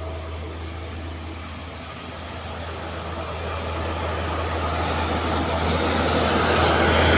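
A heavy road vehicle's engine running with a steady low hum, growing steadily louder as it approaches.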